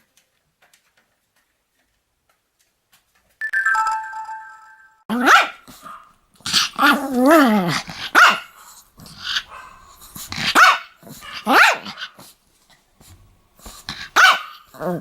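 Pomeranian barking repeatedly in short, sharp yaps after a few quiet seconds, with one longer bark about seven seconds in that falls in pitch. Just before the barking starts there is a brief high-pitched tone.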